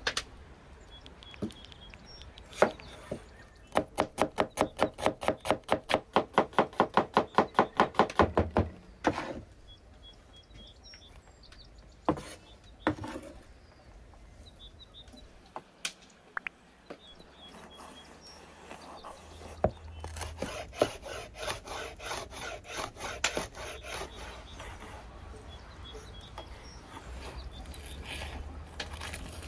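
Food-preparation handwork on wood: a run of fast, even strokes at about five a second, a few scattered knocks, then a second, fainter run of quicker strokes later on.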